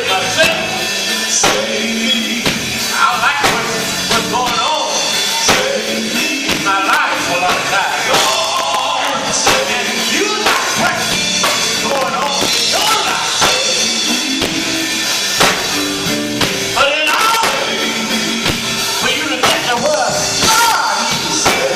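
Music: a band with drum kit playing while voices sing.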